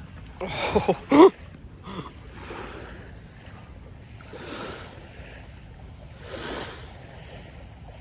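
Small waves washing up on a sandy shore, swelling softly every couple of seconds. A short loud pitched cry sounds about half a second in.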